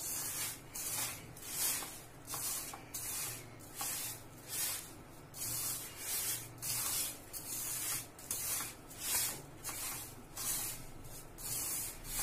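A hand rubbing and mixing ghee-roasted gram flour (besan) with powdered sugar in a steel bowl, making a rustling hiss in strokes about two a second. This is the laddoo mixture being worked by hand until it turns grainy.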